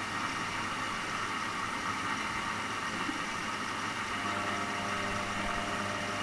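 Washing machine running: a steady mechanical hum and whir with several constant tones, unchanging throughout.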